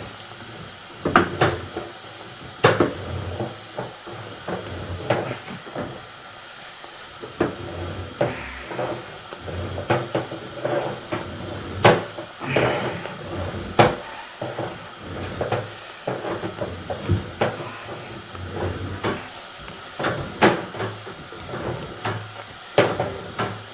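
Sewer inspection camera's push cable being pulled back out of the drain line: irregular knocks and clicks, roughly one or two a second, over a steady hiss.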